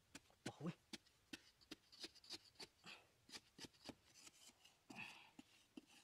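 Faint, irregular scraping and ticking of hands and a small tool working dry sandy soil in a dug hole, about two or three scrapes a second.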